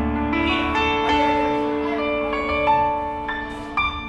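Electric keyboard playing held piano-like chords and notes over a low bass through the stage PA during a band's sound check.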